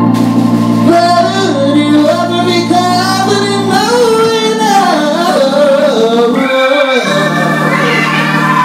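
Live soul music: a male singer sings a winding, drawn-out vocal line into a microphone over held organ-toned keyboard chords, the chords changing about four and seven seconds in.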